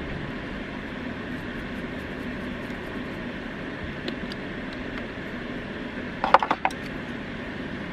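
Small glass spice jar with a plastic cap set back into a wooden spice rack: a quick cluster of clicks and knocks about six seconds in, after a couple of faint ticks as the jar is handled. A steady hum runs underneath.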